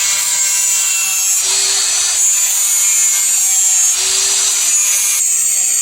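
Steel knife blade being abraded and shaped: a loud, continuous rasping that shifts in tone abruptly a few times.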